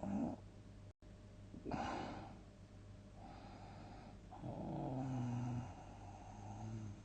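A sleeper snoring loudly: a short snort at the start, a harsher rasping snort about two seconds in, a breathy inhale, then a long pitched snore past the middle and a weaker one near the end, over a steady low hum.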